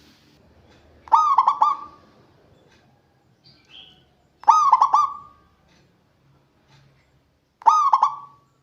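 Zebra dove (perkutut) cooing three times, about three seconds apart; each call is a quick run of three or four rolling notes ending in a short held note.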